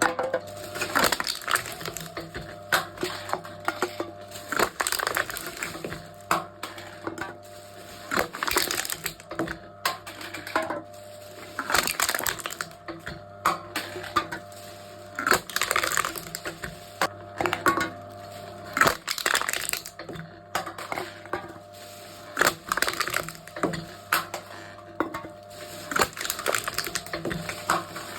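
Aluminium drink cans being crushed one after another in a can-crushing machine: crunch after crunch of crumpling metal, roughly one every second or so, over a steady low hum.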